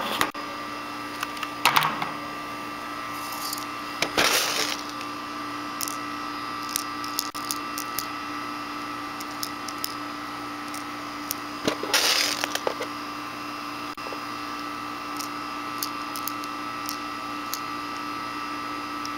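Handling noise from an airsoft pistol's CO2 magazine held close to the microphone: scattered clicks and two short scraping rustles, about four seconds in and again about twelve seconds in. Under it runs the steady hum of an air conditioner.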